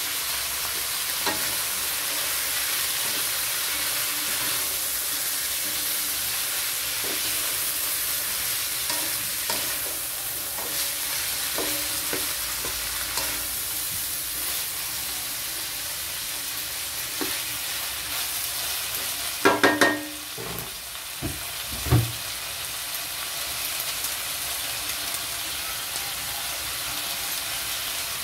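Vegetables frying in a metal wok with a steady sizzle, while a wooden spatula stirs and scrapes them with small scattered clicks. A few loud knocks come about two-thirds of the way through: three close together, then one more.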